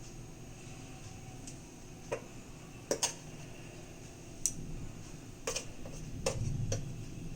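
Light clicks and taps of kitchen utensils and dishes being handled, about seven in all, irregularly spaced, with two close together about three seconds in.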